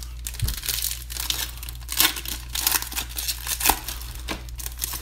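Foil wrapper of a Select basketball card pack being torn open and crumpled by hand: dense crinkling with sharp crackles, loudest about two seconds in and again near four seconds.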